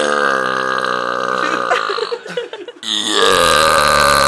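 Two long, loud, deliberate belches: the first lasts about two seconds with its pitch sinking slightly, and after a short break a second begins about three seconds in.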